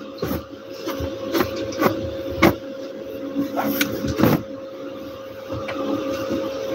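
Bedsheets and a blanket being handled as a bed is made: fabric rustling and brushing with irregular sharp knocks and soft thumps, over a steady hum.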